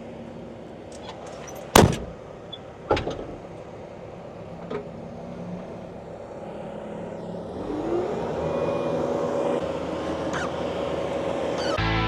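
A motor runs steadily, with two sharp bangs about two and three seconds in. About eight seconds in, its whine rises in pitch and holds, louder, as under load. Music comes in at the very end.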